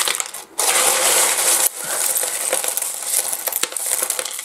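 Pieces of rough seam opal clattering and clinking together as a handful is scooped and stirred in the pile. A dense rush of stones sliding over one another starts about half a second in and lasts about a second, then gives way to scattered clicks.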